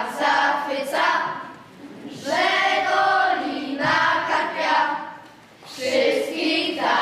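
A group of children singing together, in phrases of a second or two with short breaks between, with no instruments heard.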